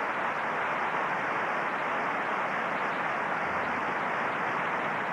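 A steady, even wash of noise like hiss or static, with no changes through it.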